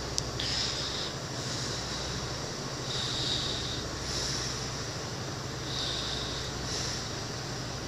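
Irish Rail intercity train standing at the platform with its diesel idling: a steady low hum, with a hiss that swells and fades every second or two. A single sharp click sounds just after the start.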